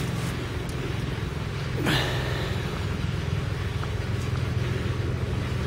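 Engine idling steadily: a continuous low rumble, with one brief falling sound about two seconds in.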